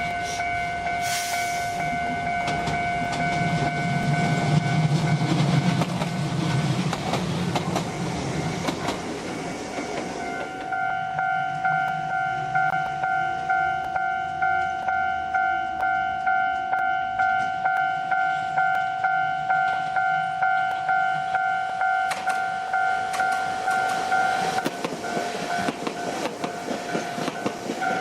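A Kotoden Shido Line electric train passes for the first ten seconds or so, its wheels rumbling and clicking over rail joints, while a level-crossing bell rings. After the train has gone, the bell keeps striking alone, about two strikes a second, and stops a few seconds before the end.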